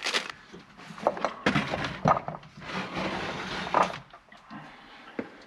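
Handling noise of metal chainsaw chain: irregular sharp clicks and knocks, with a longer rattling clatter from about a second and a half in until about four seconds, as the freshly riveted chain is picked up and moved.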